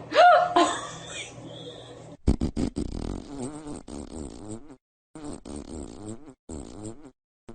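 Baby farts in a run of short clips: rough, wavering bursts of breaking wind in three separate stretches, with a few sharp clicks at a cut about two seconds in. A short vocal sound comes right at the start.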